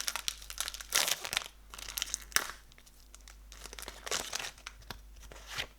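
Crinkly rustling and handling noises from trading cards being sorted through by hand: a run of short, irregular crinkles and flicks.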